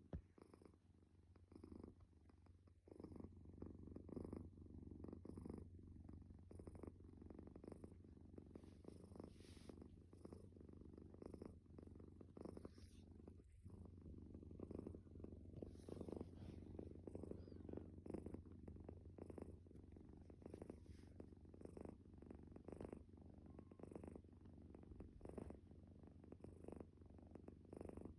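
Sleeping calico cat snoring: a faint, steady rattling rumble that swells and eases a little with its breathing.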